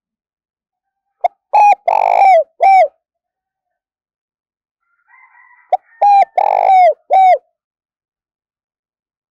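Spotted dove cooing close up: two song phrases about four seconds apart. Each phrase is a short coo or two, a longer, rougher middle note, then a short falling coo.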